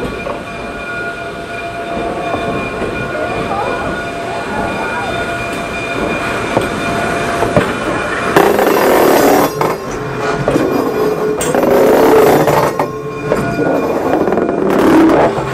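Canadian Pacific 2317, a 1923 Montreal Locomotive Works steam locomotive, at work: a steady mechanical din with faint steady tones, then from about halfway through, several louder, irregular hissing gusts.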